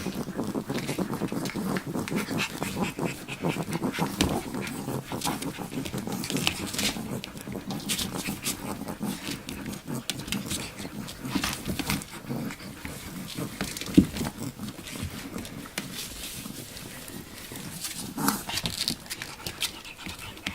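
Three-week-old Siberian Husky puppies making small noises, with scattered clicks and rustles throughout.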